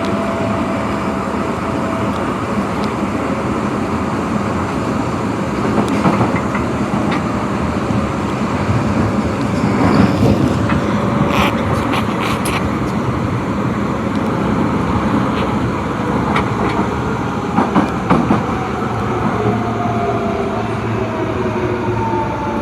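Osaka Metro Tanimachi Line 22 series subway car running, a steady rail rumble with a high-pitched running sound. A few sharp clicks come around the middle, and near the end a motor whine falls in pitch.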